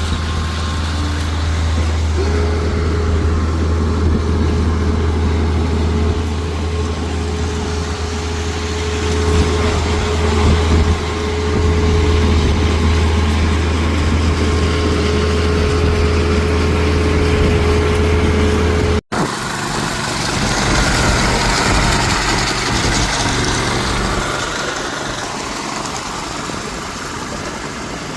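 An engine running steadily at an even pitch. About two-thirds of the way through, it drops out for an instant, and a rougher, hissier machine sound follows.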